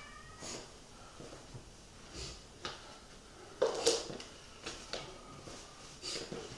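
A person moving about a quiet room: a scattered handful of brief rustles and soft knocks, the loudest cluster about three and a half seconds in.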